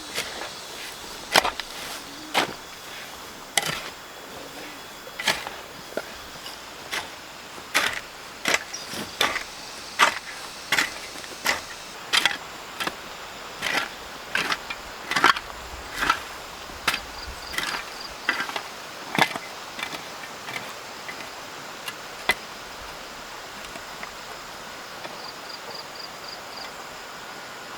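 A hand tool striking wood again and again, an irregular series of sharp knocks about one to two a second, stopping about 22 seconds in. Faint high chirps are heard near the end.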